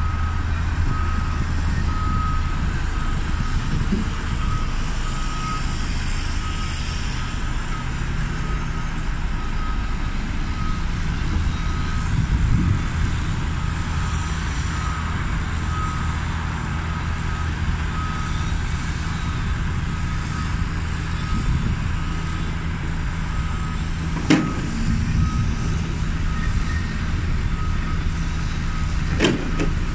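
Diesel construction plant on a demolition site, a telehandler and a tracked excavator, running steadily with traffic, while a reversing alarm beeps over and over. Two sharp knocks come late on, the second near the end.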